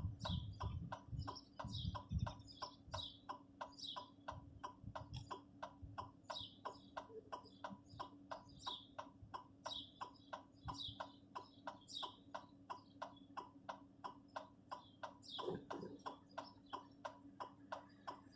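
Hazard-light flasher ticking evenly, about three clicks a second, over a steady low hum, with a few low thumps in the first couple of seconds.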